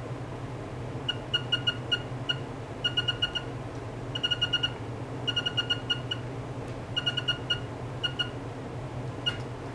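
Quick runs of short electronic beeps, a few in each run and several runs in all, from a signal generator's keypad beeper as its control knob and buttons are worked. A steady low hum runs underneath.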